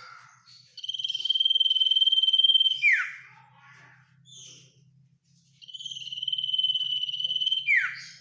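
Common iora (sirtu/cipoh) singing its long 'ngetir' trill twice. Each trill is held on one high pitch for about two seconds and ends in a quick downward-sweeping note.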